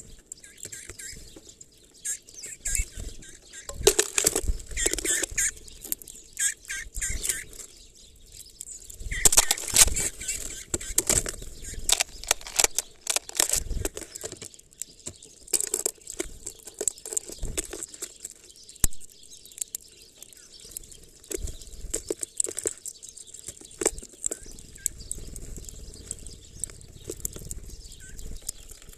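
Birds at a plastic bottle feeder of black sunflower seeds: fluttering wings, beaks and claws knocking on the plastic, and seeds rustling, in irregular bursts. The busiest flurries come about four seconds in and again around ten seconds in.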